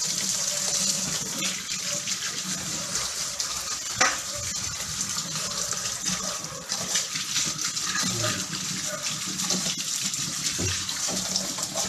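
Kitchen tap running and splashing over radishes being rinsed in a stainless-steel sink. A single sharp knock about four seconds in.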